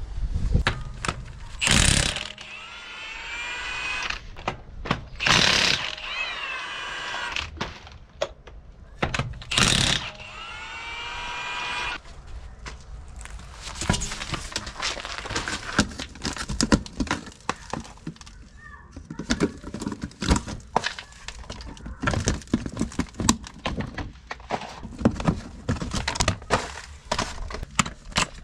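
Plastic timing-belt cover being pried off its clips on a Nissan 1.5 dCi engine. Three loud cracks come about 2, 5 and 10 seconds in, each with a short squeal of bending plastic. After that comes a long run of small clicks and knocks from handling the parts.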